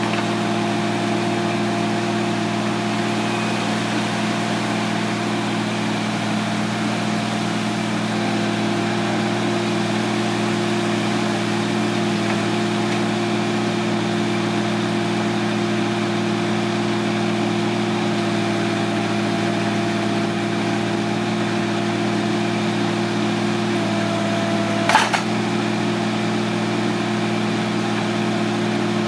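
Avant 635 compact loader's engine running at a steady speed. A single sharp click sounds near the end.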